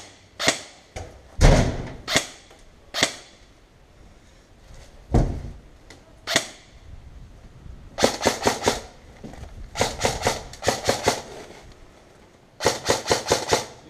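Airsoft rifles firing: single shots spread over the first seven seconds, then quick strings of about five shots each, starting about eight seconds in.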